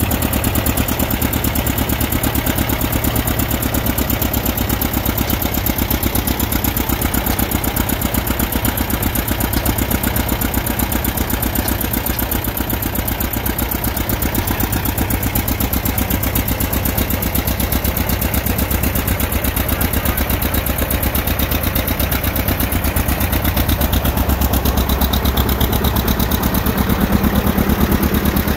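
1960 John Deere 730 LP's two-cylinder engine running steadily with a fast, even exhaust beat while belted to a prony brake. It gets a little louder near the end.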